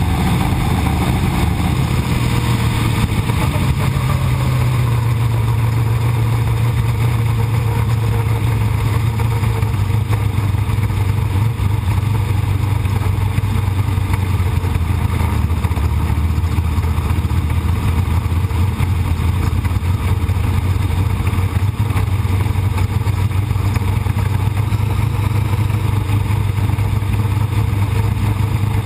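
Sprint car's V8 engine heard from the cockpit, running steadily with a dense noise of wind and dirt over it. Its note drops a little a few seconds in and then holds steady.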